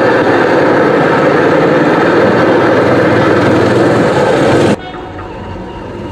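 A loud, harsh blast of noise that starts abruptly and cuts off suddenly after nearly five seconds, giving way to a quieter steady background sound.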